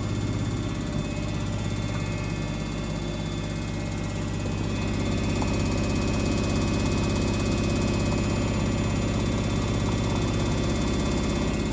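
Samsung washing machine running with a steady motor hum and whir, with a fine rapid pulsing underneath, getting a little louder about five seconds in. This is the noise the owner calls weird.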